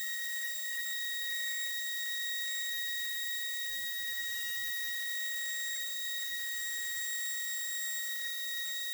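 Small hobby CNC mill's spindle running, a steady high-pitched whine with a light hiss under it, while it mills acrylic (PMMA).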